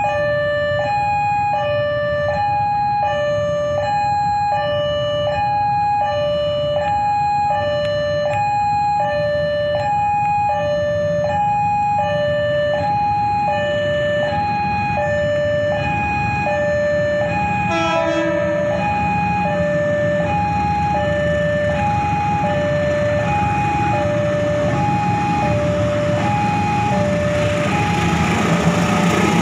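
Railway level-crossing warning alarm sounding an electronic two-tone signal, alternating steadily between a lower and a higher tone, each held about half a second. Near the end the approaching diesel locomotive's rumble grows louder beneath it.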